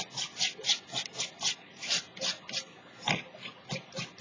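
A paintbrush scrubbing acrylic paint back and forth over strips of masking tape: short dry, scratchy rubbing strokes, about three a second, with a brief pause just before the last second.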